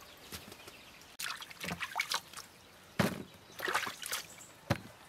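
Wet vegetables being handled in a plastic colander: a series of short, irregular rustles and splashes, the loudest about three seconds in.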